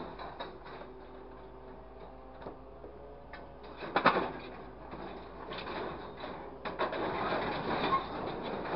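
Hydraulic grapple of a grapple truck closing on and lifting a load of scrap metal rods and pipes in the truck bed: metal clanking and rattling, loudest as the jaws bite into the scrap about four seconds in, then a long rattle of scrap shifting over a steady hum.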